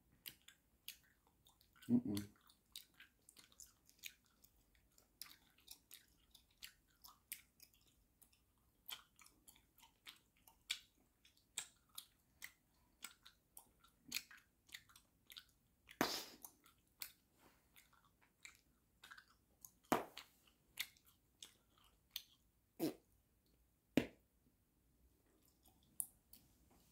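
Bubble gum being chewed by two people: an irregular run of wet smacks and clicks, with a handful of louder smacks.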